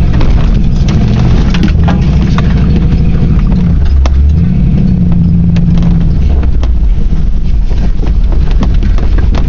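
Ford Bronco's engine running hard under load on a rough trail, its revs rising and falling with a dip about four seconds in. Sharp knocks and rattles come through as the truck bounces over the rough ground.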